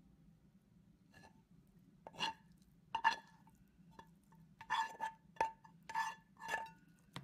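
A frying pan and utensil clinking and scraping against a ceramic plate as scrambled eggs are slid off onto it: about nine light, ringing clinks, closer together in the second half.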